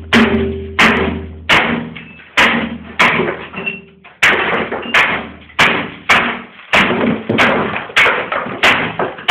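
Loud, repeated heavy blows landing about three every two seconds, each a sharp bang followed by a rattling, ringing decay, as something is beaten hard over and over.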